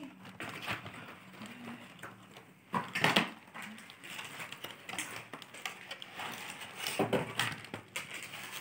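Cardboard chocolate gift box being handled and its lid opened, with rustling, scraping and light knocks of the packaging. It gets louder about three seconds in and again about seven seconds in.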